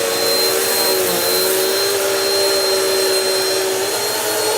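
Bissell CleanView upright vacuum running steadily over oatmeal on a thin carpet, with a constant motor whine.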